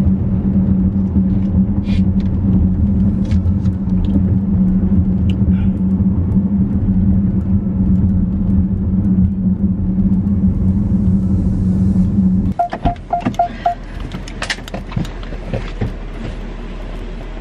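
Car engine idling with a steady low hum, heard inside the cabin, that stops abruptly about twelve seconds in as it is switched off. An electronic chime then beeps four times, followed by clicks and knocks as a car door is opened.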